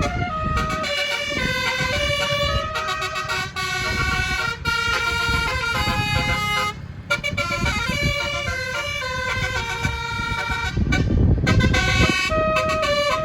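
A tour bus's 9-note telolet basuri horn playing a tune, its tones stepping from note to note with short breaks, over the low rumble of vehicle noise.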